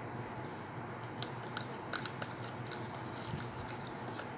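Eating pudding from a small plastic cup with a metal spoon: a scatter of light clicks and taps, most of them between one and two and a half seconds in, over a steady low hum.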